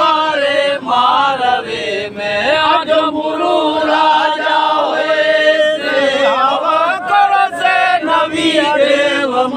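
A group of voices singing a devotional hymn together, the melody rising and falling in long sung phrases of a repeated refrain.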